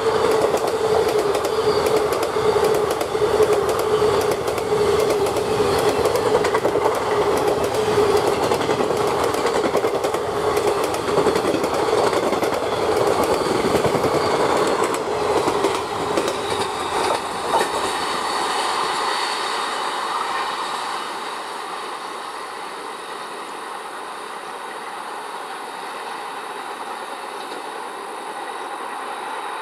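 Kalka Mail's passenger coaches passing close at speed, with rapid wheel clatter over the rails and a steady drone. After about twenty seconds the clatter fades and the sound turns quieter and thinner as the train draws away.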